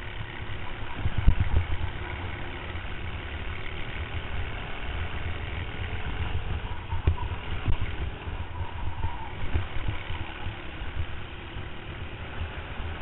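Racing kart engine running at speed, picked up by a camera mounted on the kart, under a heavy low rumble with irregular thumps on the microphone, the largest about a second in.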